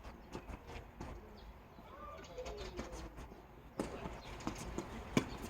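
Tennis ball struck and bouncing on a hard court: a couple of sharp knocks in the second half. Faint bird calls, like a pigeon cooing, can be heard earlier.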